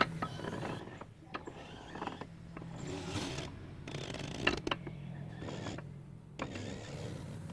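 Small offset printing press turned over slowly by hand as a sheet feeds in: its feed rollers and cylinder mechanism give irregular clicks and knocks over a low steady hum.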